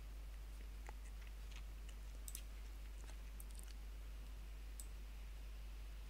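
A few faint, scattered computer mouse clicks over a steady low hum.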